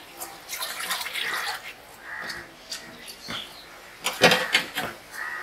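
Clinks and scrapes of steel plates and a steel cup as people eat rice by hand, coming in short irregular bursts, loudest about four seconds in.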